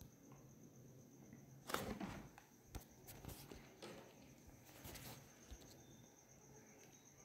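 Near silence: faint room tone with a few soft clicks and rustles, the loudest about two seconds in.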